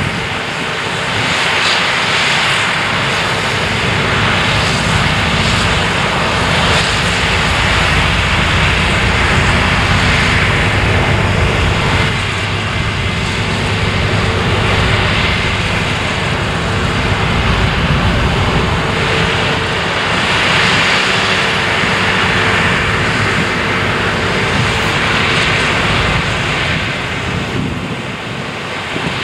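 Claas Lexion 600TT combine harvester working under load while cutting oilseed rape: a loud, steady engine and threshing drone with a broad rushing hiss and a constant hum, swelling and easing slightly.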